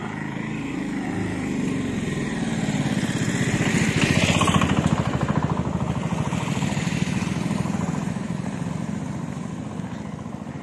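A motor vehicle's engine passing by, growing louder to a peak about four to five seconds in, then fading away.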